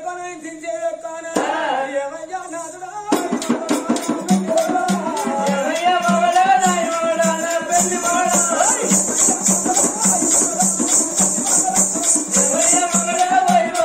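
Telugu Oggu Katha folk music: a voice singing a melodic line, joined about three seconds in by a hand drum beating a steady rhythm. Bright metallic jingling comes in a few seconds later.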